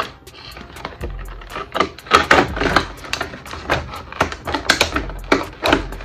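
Stiff clear plastic clamshell packaging crackling and clicking as it is bent and pulled apart by hand, in irregular bursts.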